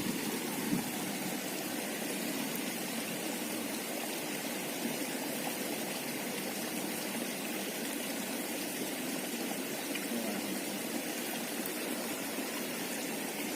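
Water running in a stream: a steady, even rush.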